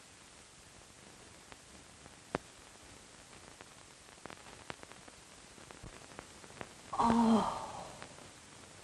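Old film soundtrack hiss with a few faint clicks, then about seven seconds in a woman's short, startled gasp with a slightly falling pitch.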